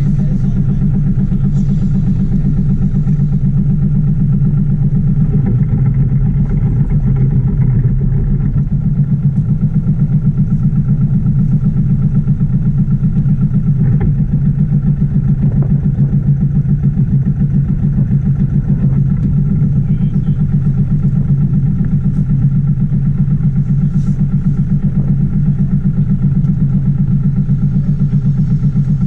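Sailboat's engine running steadily as the boat motors slowly, a low even drone with a fast regular beat.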